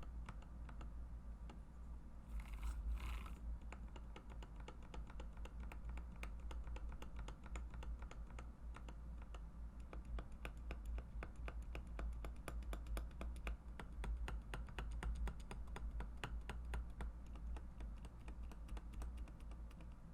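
Mechanical keyboard with Mauve linear switches, not yet retuned, typed on in a dense, continuous stream of keystrokes. Two brief scratchy rasps come about two and a half to three seconds in.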